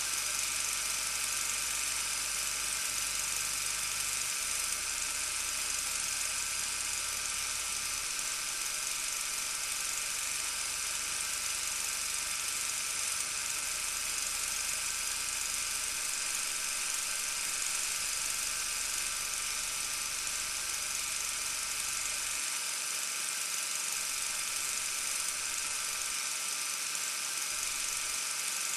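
Super 8 film projector running: a steady, unbroken mechanical whir.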